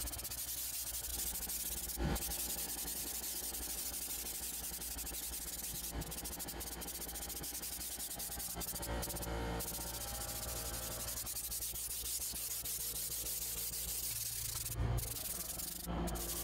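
Compressed-air spray gun spraying bed liner from a screw-on canister: a steady hiss, broken a few times briefly as the trigger is let off.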